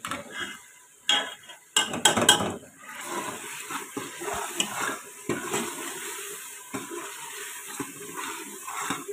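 A metal spoon clinking and scraping against the pressure cooker while stirring spices into a frying onion-tomato masala. There are a few sharp clinks in the first couple of seconds, followed by steady stirring over the sizzle of the oil.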